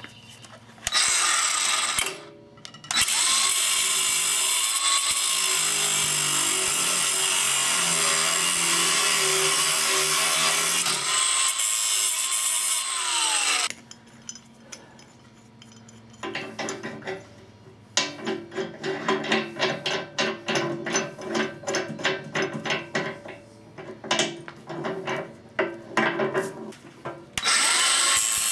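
Angle grinder with a thin cutoff wheel cutting through the protruding ends of hardened hook-mounting bolts. A long steady run of grinding is followed by choppy, stop-start cutting, and the steady run returns near the end.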